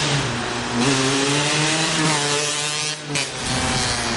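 Small 50cc two-stroke dirt bike engine, a Beta RK6 unit, revving hard as the bike rides off. The pitch climbs and falls, dips briefly about three seconds in, then climbs again.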